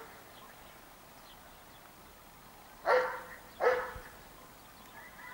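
Dog barking twice, two short sharp barks less than a second apart a little past the middle.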